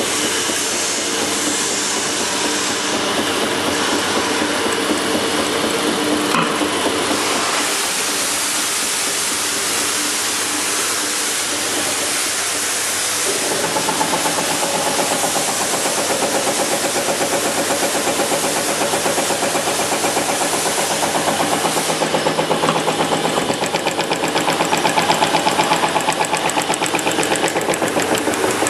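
TOS OH4 gear shaper running, a steady mechanical hum and hiss from its drive. About halfway through the sound changes and a fast, regular pulsing from the crank-driven cutter ram's strokes comes to the fore.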